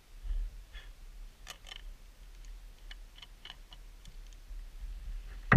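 Light metallic clicks and taps of a steel cup and cap on a green steel vacuum flask as the cup is fitted back on and screwed down, with a muffled bump near the start.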